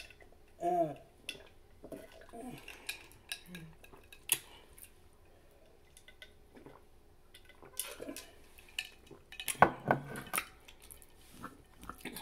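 A metal fork scraping and clinking against a ceramic dinner plate, with scattered light clicks and a burst of louder clatter about ten seconds in. A short hum from a person comes just under a second in.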